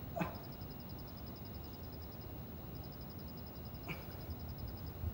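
Insects chirping in a high, rapid pulsing trill that comes in runs of a second or two with short breaks, like crickets at night. A brief grunt-like sound comes just after the start, and a faint click about four seconds in.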